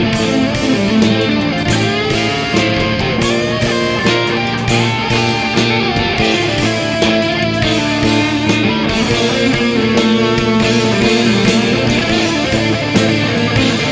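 Instrumental passage of a progressive rock song, led by guitar, with no singing.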